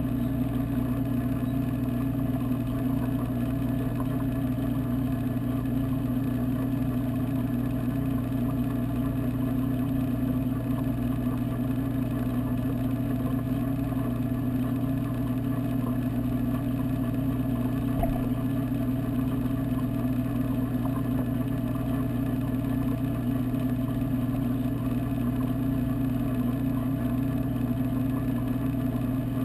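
Steady, unchanging mechanical hum of aquarium pumps, picked up underwater through the camera's waterproof housing.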